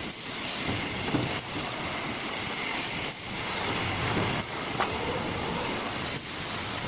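Automated case-packing line running, with its case erector, roller conveyors and case sealer: a steady machine noise broken by clacks, and a short falling hiss about every three seconds as the machine cycles.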